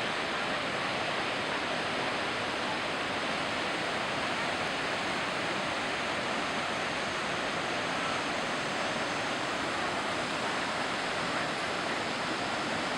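Mountain river in full flood, its silt-laden torrent rushing and breaking around a bridge pier: a steady, unbroken rush of water noise.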